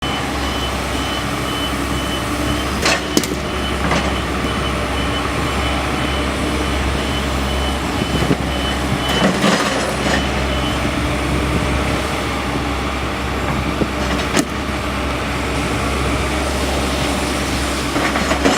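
Excavator engine running steadily while its hydraulic grab handles large boulders, with several sharp knocks of rock striking rock, the loudest about 3 s in and near 14 s. A high, evenly repeating beep of a warning alarm runs through the first ten seconds or so.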